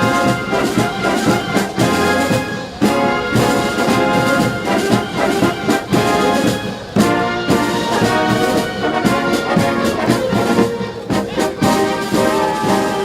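Brass band playing, with trumpets and trombones holding notes over a regular beat.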